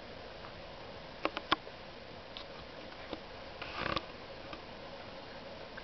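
Serval kitten moving about on a cloth-covered couch: a few sharp taps about a second in, then a brief rustling scramble near four seconds as it climbs onto the couch back, over a faint steady hum.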